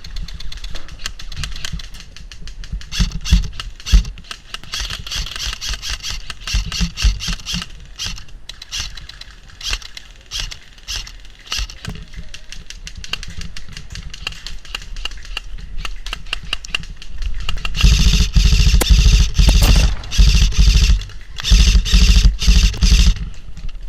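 Airsoft gunfire: scattered single shots and short bursts, then long, loud rapid-fire bursts at close range from about three-quarters of the way in until just before the end.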